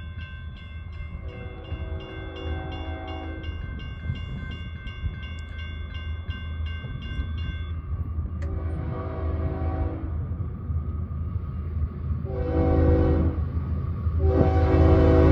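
A grade-crossing bell rings about three to four times a second, then stops about eight seconds in. Meanwhile the approaching CSX GE ES44AC-H locomotive sounds its third-generation Nathan K5HL horn in four blasts: two long, a short and a final long one still sounding at the end, the standard grade-crossing signal. The low rumble of the oncoming diesel grows steadily louder.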